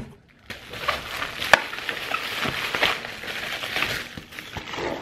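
Plastic bubble wrap crinkling and rustling as it is unwrapped by hand, with a sharp click about a second and a half in.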